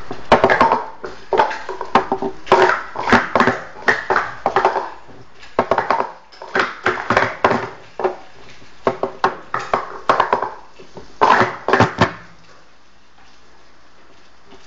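Plastic Speed Stacks cups clacking and clattering in quick flurries as they are stacked up and down at speed, stopping abruptly about twelve seconds in.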